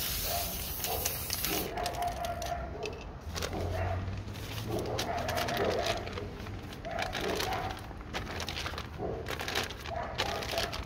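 Aerosol spray-paint can hissing for about the first two seconds, then stopping. Crinkling and rustling of a crumpled glossy magazine page follows as it is pressed and dabbed onto the wet paint.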